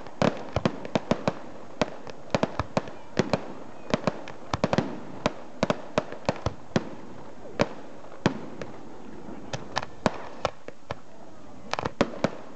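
Aerial firework shells bursting in quick, irregular succession: sharp bangs, often several a second, over a steady hiss, with a short thinner spell about three-quarters of the way through before the bangs pick up again.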